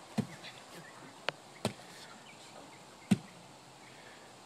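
An 8-pound sledgehammer striking a tree stump: four sharp hits, irregularly spaced, over about three seconds.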